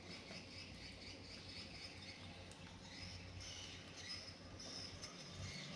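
Faint high-pitched chirping, uneven and patchy, with a few faint clicks.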